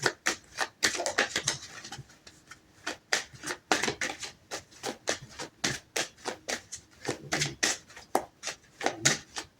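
Tarot cards being handled and shuffled: a steady run of sharp, light clicks and slaps, several a second and unevenly spaced.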